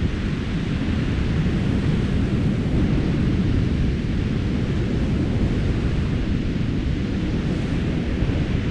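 Wind buffeting the microphone: a steady, loud rush of noise, heaviest in the low end, with no engine or other distinct sound standing out.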